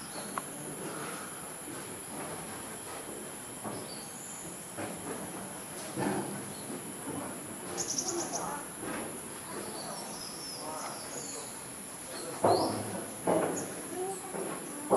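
Steady high-pitched drone of rainforest insects, with bird calls over it: a quick run of high chirps about 8 seconds in and thin sweeping whistles a little later. A few louder, lower sounds come in near the end.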